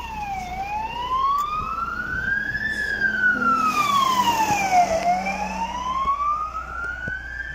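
Fire engine siren wailing, its pitch gliding slowly up and down, about two seconds each way, as the truck drives past on an emergency call, loudest in the middle of the pass. The truck's engine rumbles underneath.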